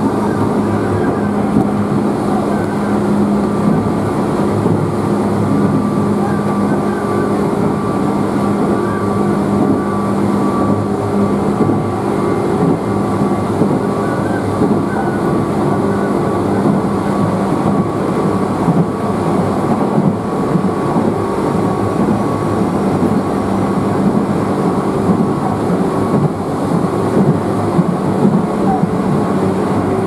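Running noise inside a moving Tobu Skytree Line electric commuter train: a steady rumble of wheels on the rails with a constant low hum.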